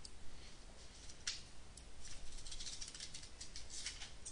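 Faint clicks and scratchy rustles from a computer pointing device being worked while a line is drawn on screen. One sharp click comes about a second in, and a run of quick clicks follows in the second half.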